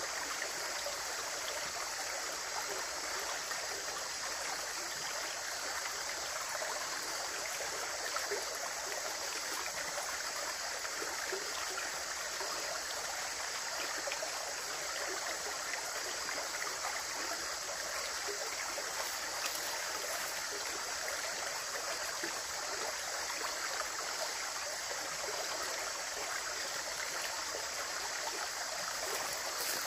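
Running water flowing in a steady, even rush with no pauses or changes.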